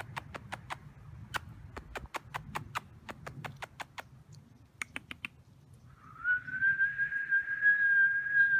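Rapid sharp chirping calls, about four a second and in short runs, typical of tree squirrels' alarm chatter. From about six seconds in they give way to a long, steady, high whistle-like tone that is louder than the chirps.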